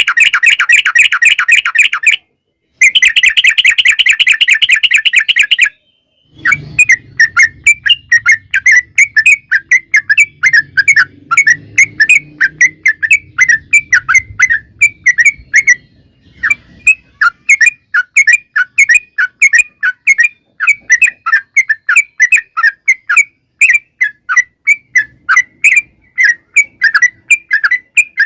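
Yellow-vented bulbul (trucukan) song: two long, very rapid rattling trills in the first six seconds, then a long run of quick, sharp repeated chirps, about three or four a second, with a brief pause about two-thirds of the way through.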